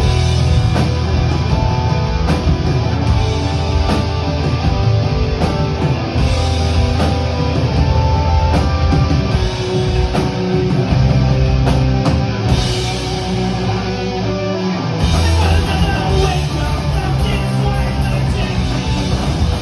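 Live punk rock band playing loud, amplified: distorted electric guitars, bass guitar and a drum kit.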